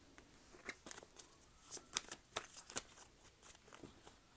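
A deck of tarot cards being handled in the hands: faint, irregular light clicks and taps of the card edges as the deck is squared and readied for shuffling.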